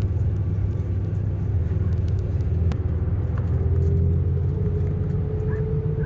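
A motor vehicle's steady low engine and road rumble, with a faint whine that rises slightly in pitch about halfway through.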